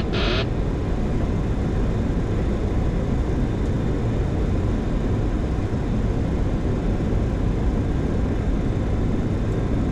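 Boeing 737-800 flight deck on final approach: the autopilot-disconnect warning tone cuts off about half a second in. The steady rush of airflow and engine noise in the cockpit remains.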